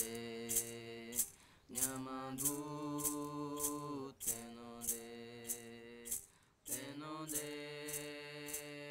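Guarani Mbya chant sung in long held notes that fall in pitch at the end of each phrase, with a brief pause about a second and a half in and again near the end. A steady beat of short percussive strokes, just under two a second, runs under the voice.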